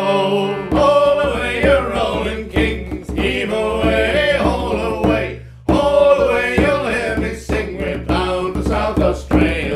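Three men singing a sea shanty in close harmony, with hand-held frame drums beaten in time. About half a second in, a held concertina chord is cut off and the drum-backed singing begins.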